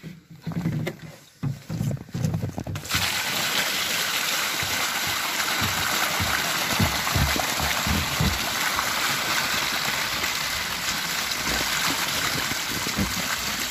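Water pouring steadily out of a fish-transport box into the pond as live carp are tipped and washed out. The pour starts suddenly about three seconds in, after a few low knocks.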